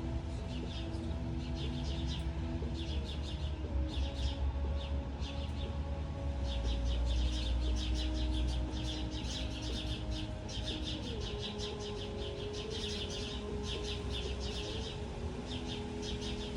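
Low rumble under steady sustained tones that shift in pitch like music, with repeated bursts of rapid high chirping ticks.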